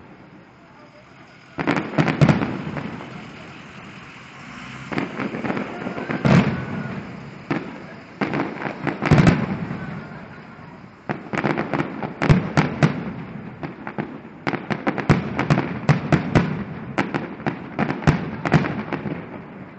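Fireworks display: volleys of sharp bangs and crackles in clusters, with short lulls between them, thickest in the second half.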